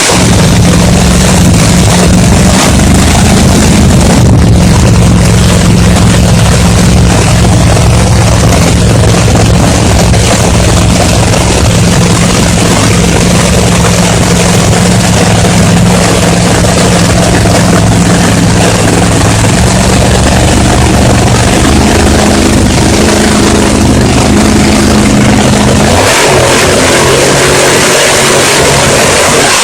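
Loud vehicle engine running steadily with a deep, even hum, changing abruptly near the end.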